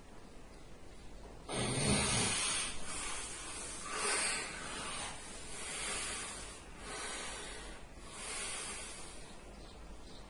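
A sleeping man snoring: a sudden snorting snore about a second and a half in, then long hissing breaths that swell and fade several times.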